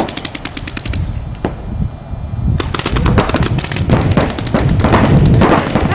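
Paintball markers firing fast strings of shots, a dense crackle of pops. The firing thins out a second in and comes back heavy about two and a half seconds in.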